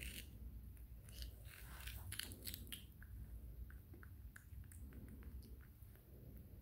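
Baby monkey biting into a raw cucumber and chewing it, with crisp wet crunches. The crunches are densest and loudest in the first three seconds, then thin out to lighter chewing clicks.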